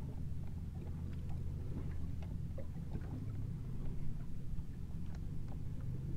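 A boat's motor idles with a steady low hum. Small splashes of water against the hull tick lightly over it.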